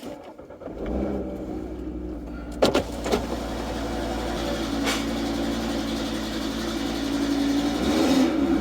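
Audi RS3's 2.5-litre five-cylinder engine starting about a second in and settling into a steady idle, with two sharp clicks a little under three seconds in. The engine note rises slightly near the end.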